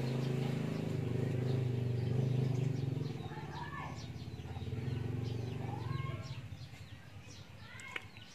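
A motor vehicle's engine running with a steady hum that fades away about six to seven seconds in, while small birds chirp.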